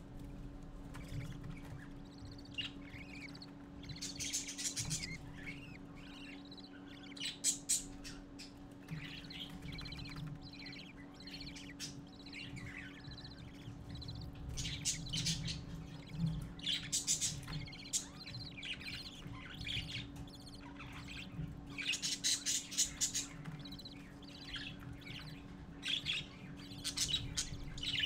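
Budgerigar chicks in the nest box giving rapid, raspy begging chirps in bursts every few seconds as they crowd the adult male. A steady low electrical hum runs underneath.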